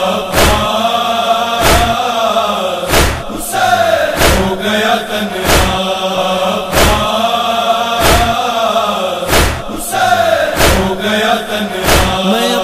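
Voices chanting a Muharram noha (Urdu lament) in long, drawn-out notes, kept in time by a steady beat of sharp strikes about every second and a quarter, typical of matam chest-beating.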